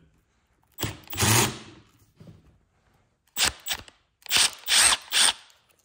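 Cordless drill-driver run in several short bursts, backing out large Allen plugs from a BMW servo ABS pump's housing.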